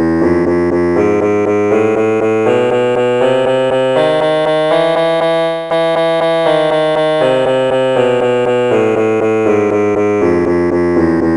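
Keyboard playing the Mayamalavagowla scale as a sargam exercise, each note sounded three times in quick succession, about four notes a second. It climbs one octave for the first half and comes back down in the second half, over a steady low drone.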